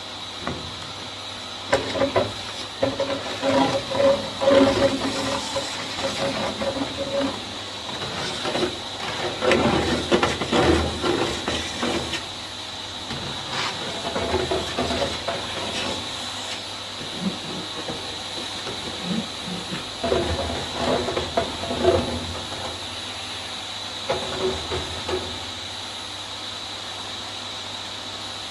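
Vax Air Steerable Max upright vacuum cleaner running steadily with a high motor whine. Irregular thumps and rubbing come as it is worked down a flight of stairs.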